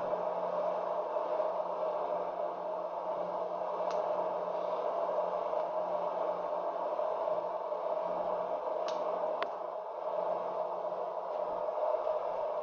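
SMART Retro mini hot air popcorn maker's electric fan blowing steadily, a whir with a low motor hum underneath. A few sharp clicks of the first kernels popping, once about four seconds in and twice close together around nine seconds.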